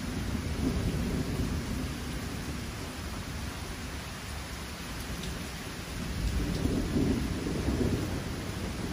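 Steady rain of a thunderstorm falling, with low rumbles of thunder swelling and fading, once about a second in and again from about six seconds.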